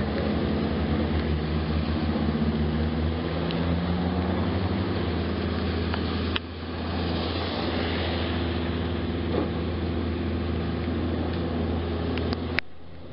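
A motor vehicle's engine running steadily under a constant hiss of rain and wet road spray, with a sharp click and drop in level about six seconds in and another click near the end.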